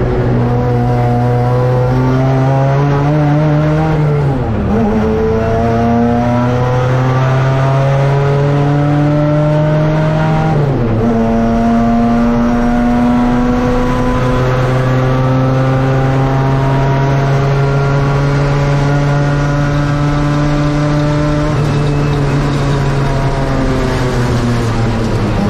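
Saloon race car's engine heard from inside the cockpit under hard acceleration, its note climbing steadily. The driver lifts off briefly about four and a half seconds in, again about eleven seconds in, and at the very end, and the engine dips and picks up again each time.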